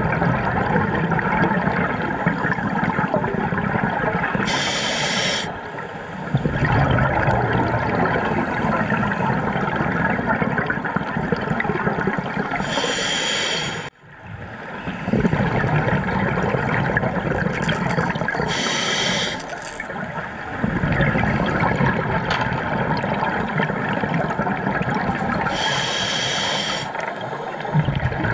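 Scuba diver breathing through a regulator, heard underwater. There are four inhalations with a whistling hiss, roughly seven seconds apart, and each is followed by a long burble of exhaled bubbles.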